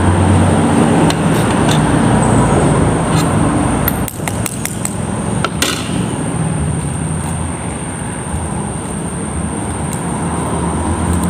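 A spoon tapping a balot's eggshell, cracking it in a few sharp clicks, over a steady background rumble.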